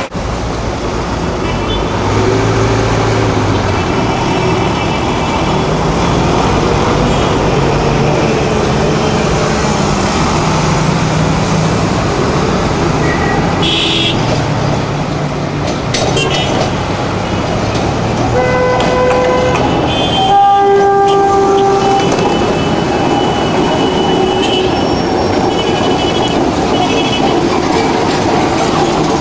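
Heliopolis tram running along street track amid steady city traffic noise, with several horn toots about two-thirds of the way through.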